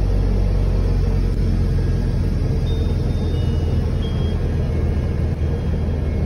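Steady low engine and road rumble inside a moving bus's cab.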